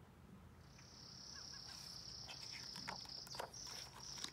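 Soft rustles and taps of a picture book's pages being turned, under a faint, high, steady trill that starts about half a second in.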